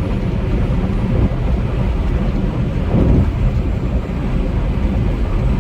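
Semi truck driving at highway speed, heard from inside the cab: a steady low rumble of engine and road noise with wind buffeting.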